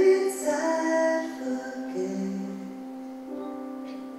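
A woman singing live to her own keyboard accompaniment, with held notes that grow softer after about two seconds.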